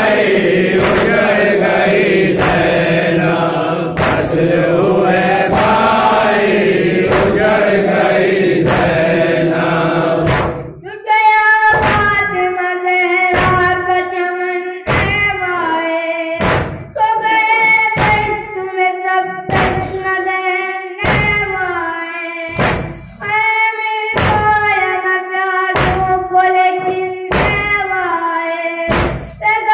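Shia noha recitation: a group of men chanting the lament together, then, about eleven seconds in, a single boy's high voice reciting alone through a microphone. Throughout, rhythmic chest-beating (matam) thuds land about once a second.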